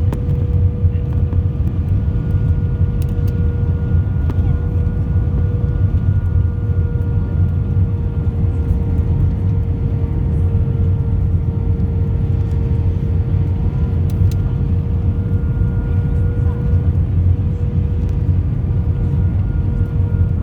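Steady cabin noise of a jet airliner heard from inside the passenger cabin: a loud low rumble of engines and airflow, with a steady whine held at one pitch.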